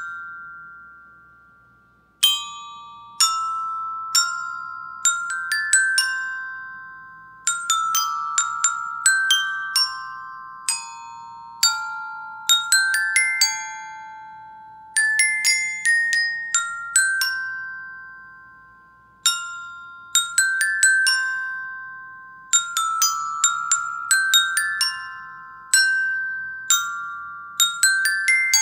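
A glockenspiel's metal bars are struck with two mallets, playing a slow melody note by note. Each bright, bell-like note rings on and fades. The first new note comes in about two seconds in, after the previous note dies away.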